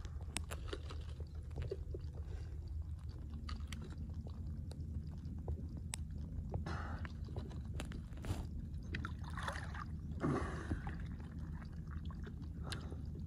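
Shallow water sloshing and gurgling around a person lying submerged and groping in a burrow under a mud bank, with scattered small clicks and a few short sloshes, over a steady low rumble.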